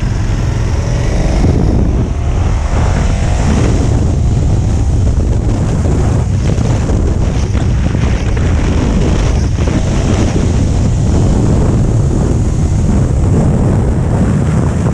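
KTM 1290 Super Adventure's V-twin engine accelerating hard, its pitch rising in the first few seconds. Heavy wind rush on the microphone builds with road speed.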